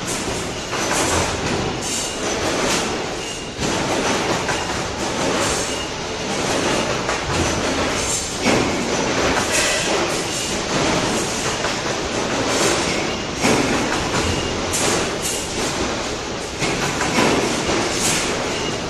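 Loud sheet-metal factory din: continuous machine noise with frequent metallic clanks and knocks as thin sheet parts are handled and bent on a servo-electric press brake.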